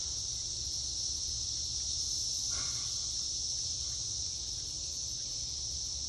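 A chorus of cicadas: one steady high-pitched buzzing drone that does not change, over a low steady rumble.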